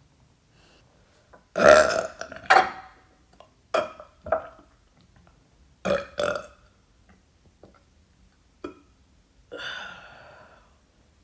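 A woman burping repeatedly, breathy burps. The loudest and longest comes about a second and a half in, then shorter burps in quick pairs follow, and a longer burp near the end fades out.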